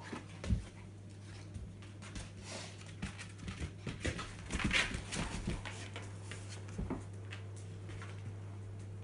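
A puppy and an adult Rhodesian ridgeback playing, the puppy going after the ridgeback's tail: a few short growling and whining dog sounds, most of them in the middle, over scattered taps of claws and paws on a hard floor.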